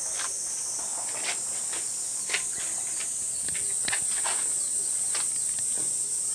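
A chorus of insects in the trees, a steady high-pitched drone, with scattered light clicks and taps over it.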